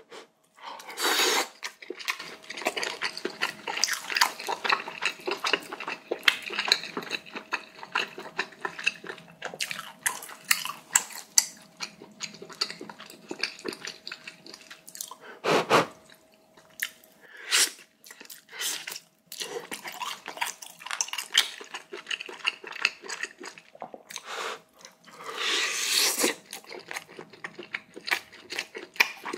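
Close-miked eating sounds of a person eating pork-bone soup: chewing and biting, with many small crunches, wet mouth clicks and a few louder bursts.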